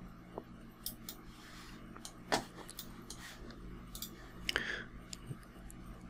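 Faint, scattered clicks of a computer mouse, a few seconds apart, over a low steady hum.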